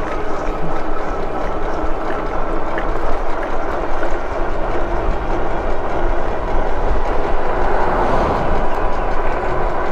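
Steady wind rush over the camera microphone and tyre rumble from an electric bike riding along, with a thin steady whine from its hub motor.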